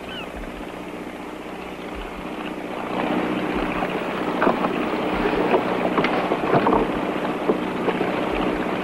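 Motorboat under way, its engine running with a steady low hum under the rush of water along the hull. About three seconds in it grows louder, with short splashes of spray.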